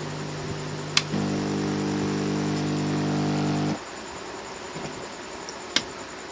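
Steady electric hum from workbench equipment that grows fuller just after a click about a second in, then cuts off abruptly about four seconds in. Another sharp click comes near the end.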